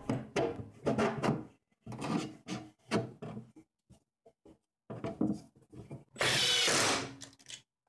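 A plywood strip being fitted into the back of a wooden saw cabinet: a run of short wooden knocks and rubs, then a louder rub lasting under a second, about six seconds in.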